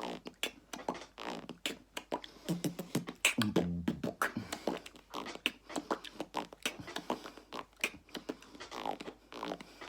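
A man beatboxing with his mouth: quick clicks, pops and hissing snares in a steady run of several beats a second, with short voiced hums and bass notes mixed in.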